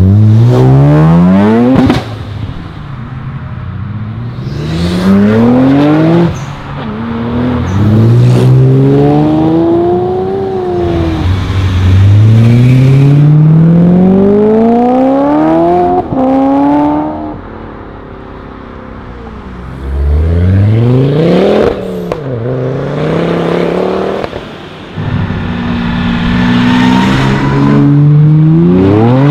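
One sports car after another accelerating hard, each engine revving up steeply through the gears with a brief drop in pitch at every shift, the cars cut together back to back. Near the end a Ferrari V12 coupe pulls away.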